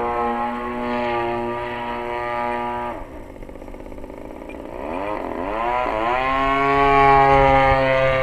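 Desert Aircraft DA-35 single-cylinder two-stroke gas engine of a large RC aerobatic plane in flight. It runs steadily, then about three seconds in the throttle comes back and the pitch and level drop, before it revs back up and runs steady and louder near the end.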